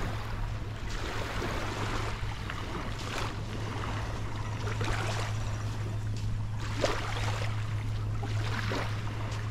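Small waves washing on a sandy beach, a rough rushing sound that swells a few times, over a steady low hum.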